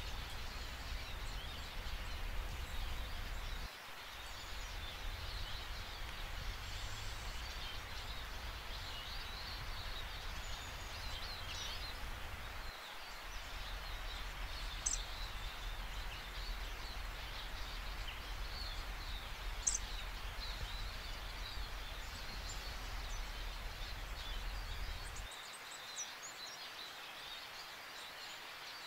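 Woodland ambience: a steady hiss over a low rumble, with faint scattered bird chirps and two short, sharp high ticks. The rumble drops away near the end.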